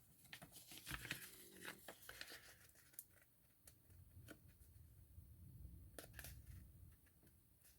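Faint paper handling: soft rustling of card and paper with a few small sharp clicks and snips, typical of cutting and lining up thumb notches in paper pockets.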